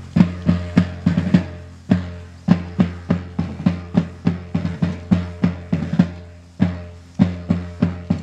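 Military side drum beating a marching cadence for troops on the march: sharp strokes a few times a second, mixed with quick ruffs and short rolls.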